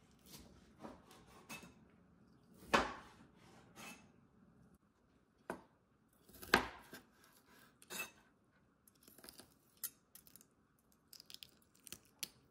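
Steel Farberware meat cleaver chopping raw meat on a wooden cutting board: irregular chops and knocks, two of them much louder than the rest, with a run of lighter taps near the end.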